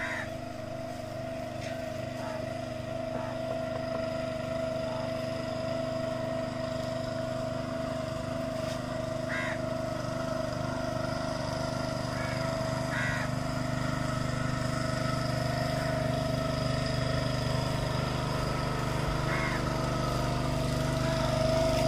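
An engine running steadily, a constant droning hum that grows slightly louder toward the end.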